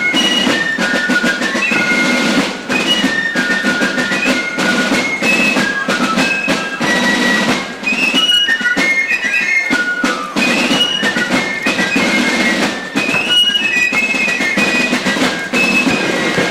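A fife and drum corps playing: a high-pitched fife melody over continuous drumming.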